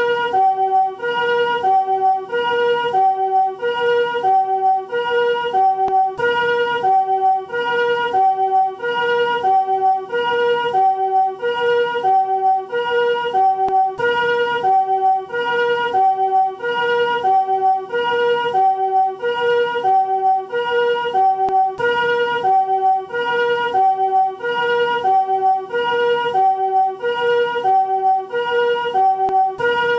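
Japanese ambulance two-tone 'pee-po' siren of the newer chord type (comfort siren), alternating evenly between a higher and a lower chord of several notes, about one high-low cycle a second, steady and unbroken.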